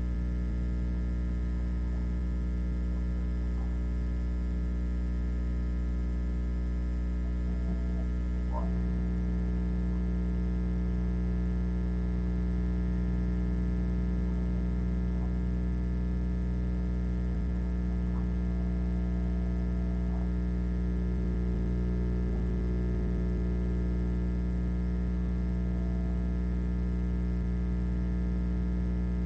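Steady electrical mains hum: a low buzz with evenly spaced overtones that grows a little stronger about eight seconds in.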